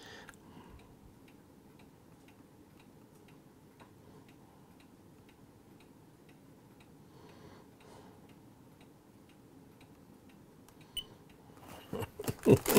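Faint, regular ticking, about two ticks a second, over quiet room hiss. Near the end there is a short burst of louder knocks and rustling from hands moving over paper.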